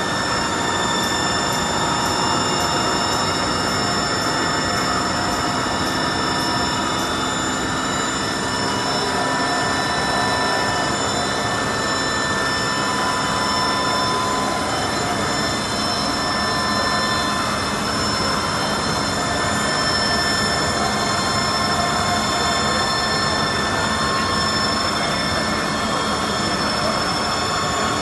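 Ultra Max JHS 1300 film slitter-rewinder running at speed, winding slit film onto rolls: a steady mechanical whirr with several constant high-pitched whining tones over it.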